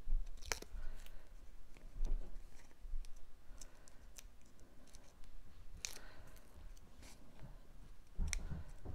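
Light clicks and paper rustling from hands handling small cardstock pieces and peeling foam tape, with a few sharper ticks, one about two thirds of the way in and one near the end.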